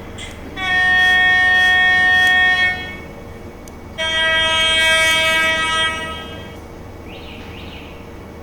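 Sound-decoder horn of an N-scale HXD1C electric locomotive model, played through the model's small speaker: two long horn blasts of about two seconds each, the second a little lower in pitch than the first.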